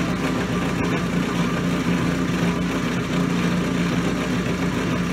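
Shoe repair finishing machine's motor running with a steady hum.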